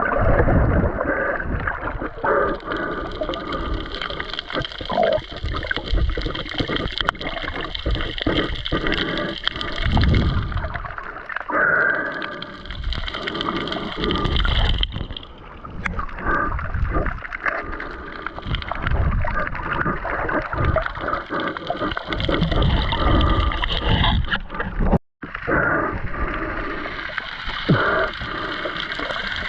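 Underwater sound: water gurgling and surging in low rumbles, with many scattered clicks and a steady high hiss. It cuts out for a moment near the end.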